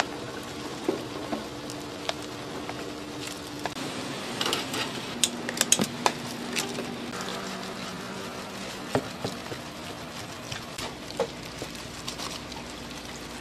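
Kitchen clatter of utensils and dishes, with scattered sharp clicks and knocks, the busiest about five to six seconds in, over a steady low hum.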